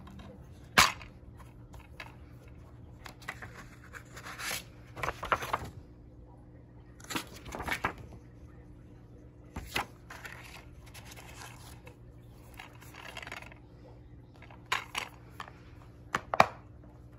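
A plastic DVD case being handled, with a few sharp clicks from the case, and paper rustling and scraping as its printed insert is handled.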